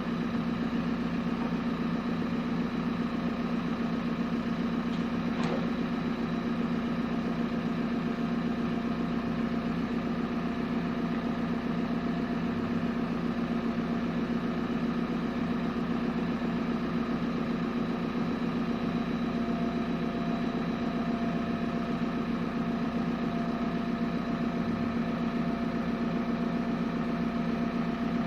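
Backhoe's diesel engine idling steadily, without revving.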